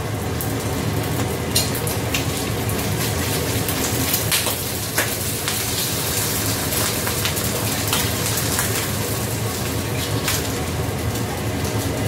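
Egg sizzling as it fries in a little oil in a stainless steel wok, with a few sharp clicks of a metal spatula against the pan as the egg is broken up and stirred.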